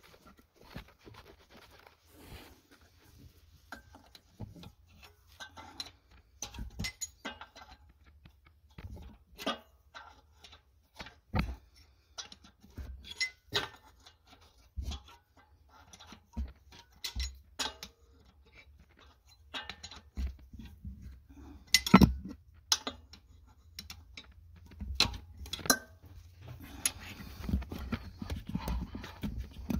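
Irregular metal clicks, clinks and scrapes of a wrench working at a PCV valve in an engine bay, with one sharper knock about two-thirds of the way through.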